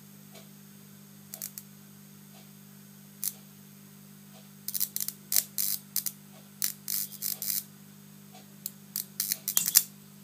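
High-voltage electric arcs snapping and crackling in irregular clusters as a live electrode touches a vacuum fluorescent display, starting about four and a half seconds in and loudest near the end. A steady low hum from the high-voltage supply runs underneath.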